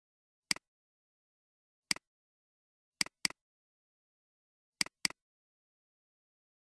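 Computer mouse clicks: two single clicks about a second and a half apart, then two double clicks, with silence between.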